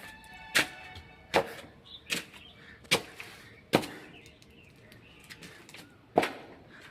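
A series of sharp knocks, about one every 0.8 seconds for the first four seconds, then a pause and one more, louder knock near the end.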